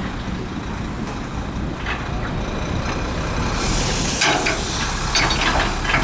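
Heavy diesel construction machinery running with a steady low rumble that grows slightly louder, with several short bursts of hissing a few seconds in.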